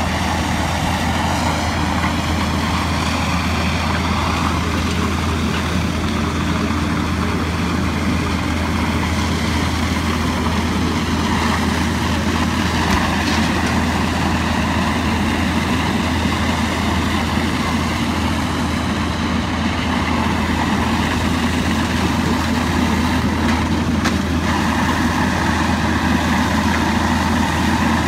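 Fire trucks' diesel engines running steadily at pumping speed, feeding the aerial master streams, a constant low drone.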